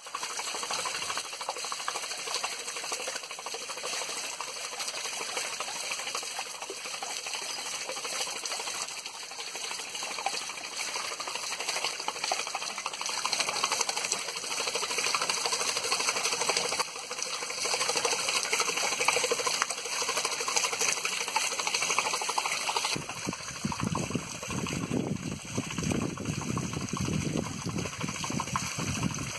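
Water splashing and pouring off a small overshot waterwheel as it turns, a steady rushing noise. About 23 seconds in, a deeper rumble joins it.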